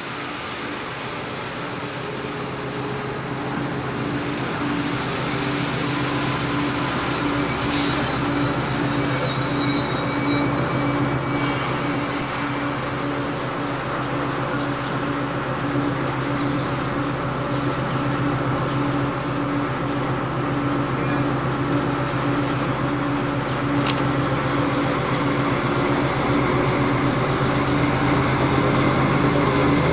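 FS D445 diesel-electric locomotive's engine running with a steady low hum as it approaches hauling a regional train, growing steadily louder. Two sharp clicks come about eight seconds in and near the three-quarter mark.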